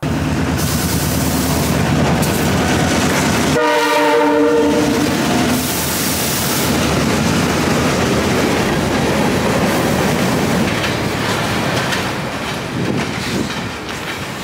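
Diesel freight locomotive running as it comes up the line, then sounding its air horn once, a really loud chord lasting about two seconds, a few seconds in. Covered hopper cars then roll past on the rails with a steady rumble that grows a little quieter near the end.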